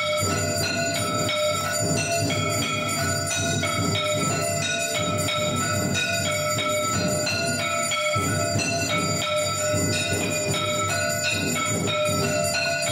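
Temple bells ringing rapidly and without pause during worship, their tones hanging on and overlapping above a dense low din.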